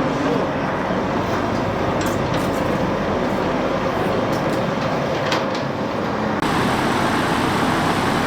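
A heavy vehicle's engine running steadily while being manoeuvred into place, with a few faint knocks; the sound changes abruptly about six seconds in.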